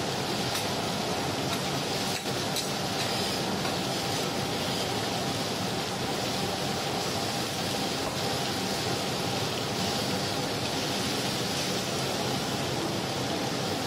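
Steaks, pork chops and eggs sizzling steadily on a hot flat-top griddle, with a faint steady tone beneath and a few light metal clicks of tongs and spatula in the first few seconds.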